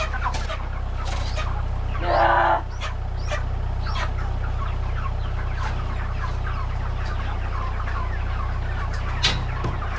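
A flock of meat chickens peeping and clucking, with one louder harsh squawk about two seconds in, over a steady low hum.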